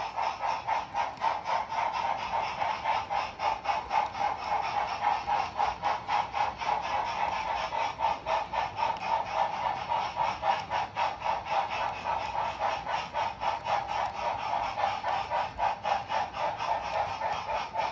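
Wheels of a large-scale model passenger train rolling past on the track, giving a rapid, even clicking as they cross the rail joints, over a steady hum.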